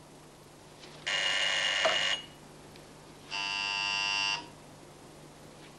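Telephone ringing with an electronic buzzing tone: two rings of about a second each, an incoming call.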